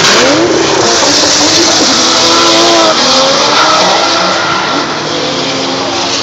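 A drift car's engine revving hard and wavering in pitch as the car slides sideways, its rear tyres screeching and smoking. The revs climb about half a second in, and the sound eases off a little near the end as the car moves away.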